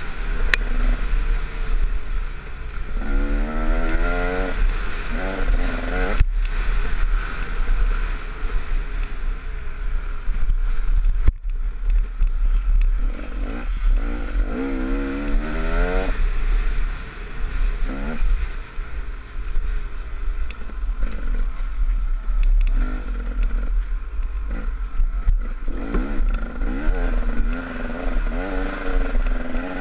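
Off-road motorcycle engine under hard riding, its pitch climbing and falling again and again as the throttle is worked through the gears on a rough dirt trail, over a constant low rumble.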